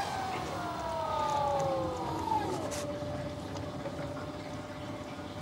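BWD5-40 stainless steel variable-speed booster pump whining as its motor slows, the pitch falling over about two and a half seconds. It then runs on steadily at the lower speed.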